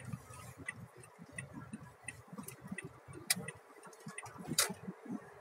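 A car's turn-signal indicator ticks steadily, about three clicks a second, over the low rumble of the car heard from inside the cabin. A few louder sharp knocks come through, one about three seconds in and another near the end.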